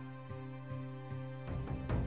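Instrumental background music with sustained chords and a steady pulse of repeated notes, about two and a half a second, with a louder note near the end.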